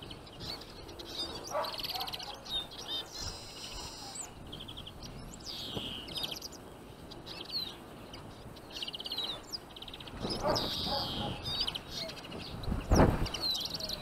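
Small finches, Eurasian siskins among them, chirping and twittering with many short calls and buzzy trills. A low thump sounds near the end.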